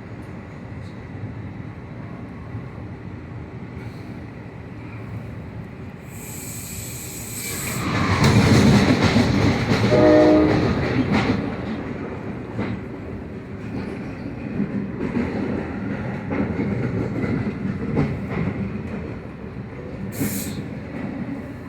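Train passing, its rumble swelling loudly about eight seconds in, with a short horn blast around ten seconds in.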